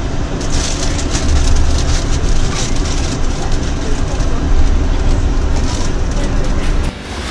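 Yurikamome automated guideway train running, a steady low rumble of its rubber tyres on the concrete guideway with frequent rattles and clicks. The level drops suddenly just before the end.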